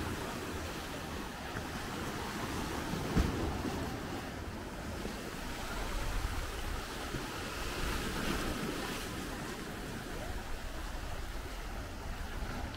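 Small sea waves washing on a beach, swelling twice, with wind on the microphone. A single sharp thump about three seconds in.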